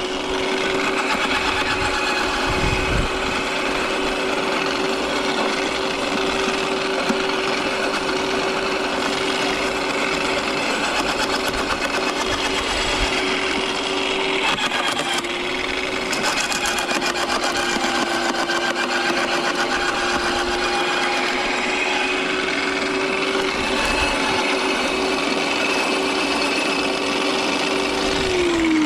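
Electric garden shredder running at speed as conifer branches are fed in, its motor's steady hum under the crunch and rattle of wood being chipped. The pitch sags slightly about halfway through as it takes the load, and near the end the motor is switched off and winds down with a falling hum.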